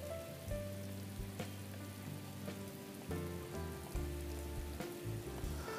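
Steady rain falling on pavement, with soft background music of slowly changing held notes.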